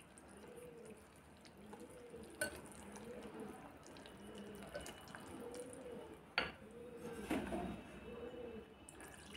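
Wire whisk stirring a thin flour, semolina and milk batter in a glass bowl: faint, rhythmic wet stirring strokes, slow to keep lumps from forming, with two sharp clicks.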